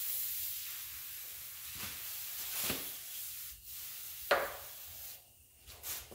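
Aerosol oven cleaner hissing out of the can in long sprays onto a greasy V8 engine, with a short break after about three and a half seconds. The spraying stops about five seconds in. A sharp tap about four seconds in is the loudest sound.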